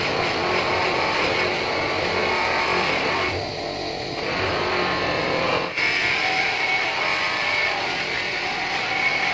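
Bench polishing motor running steadily with an aluminium motorbike wheel hub pressed against its buffing wheel, a continuous whir and rubbing hiss of the wheel working the metal, with a brief dip about two thirds of the way through.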